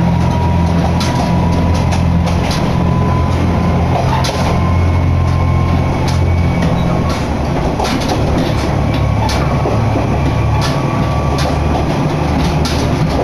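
Running noise inside a Kanto Railway Joso Line diesel railcar on the move: a steady low engine drone that changes about halfway through, with a faint whine above it and scattered sharp clicks from the wheels and rails.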